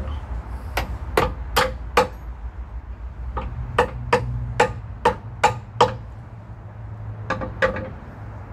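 Hammer striking metal in rows of quick blows, each with a short metallic ring: four blows, a pause, seven more, then two near the end. A steady low hum runs underneath.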